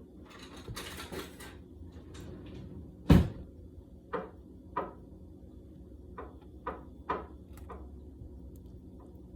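Kitchen handling sounds: a brief rustle, then one sharp knock, like a cupboard door or a jar set down hard, followed by about six lighter clicks and taps as items are moved about.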